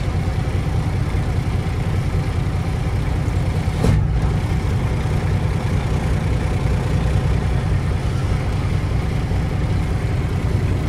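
Semi truck's diesel engine idling steadily, heard from inside the cab, with a single sharp click about four seconds in.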